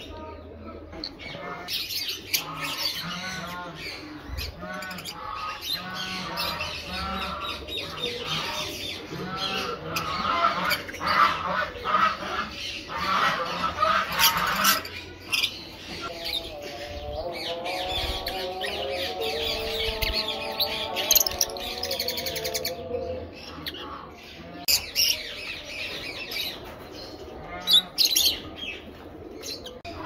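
A flock of lovebirds, Fischer's lovebirds among them, chattering constantly with shrill, rapid chirps and harsh squawks, a few squawks standing out louder. About halfway through, a lower, drawn-out sound with several pitches runs for some seconds under the chatter.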